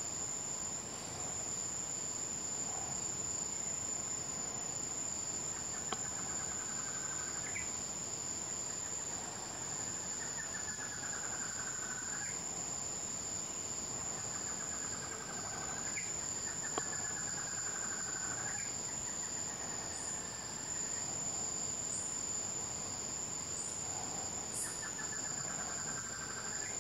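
Constant high-pitched insect drone from crickets or cicadas, the loudest sound, with an Acre Antshrike singing about six times: each song a rapid rattling series of notes, falling slightly, ending in a rising upslurred note.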